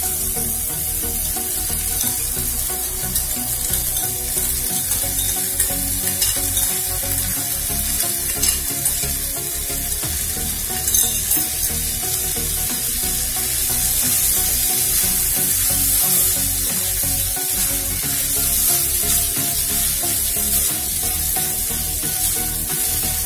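Raw Gobindobhog rice coated in ghee being stir-fried with carrots and beans in a nonstick kadai: a steady sizzle of hot oil with a wooden spatula scraping and turning the grains, and a couple of louder scrapes or knocks about halfway through.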